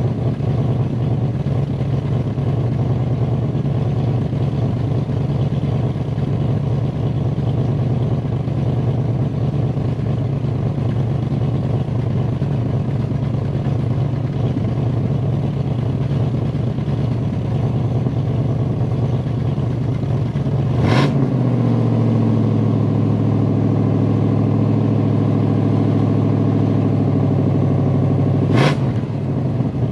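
The original 1971 Pontiac Bonneville's 455 V8, a two-barrel car with single exhaust and points ignition, is running steadily while it warms up after a cold start without choke. About two-thirds of the way through, a sharp click comes and the engine note turns smoother and more even for about eight seconds. It ends with another sharp click.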